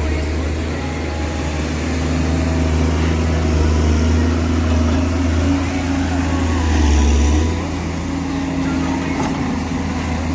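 Komatsu excavator's diesel engine running under work, a steady low drone that swells about seven seconds in and then drops back.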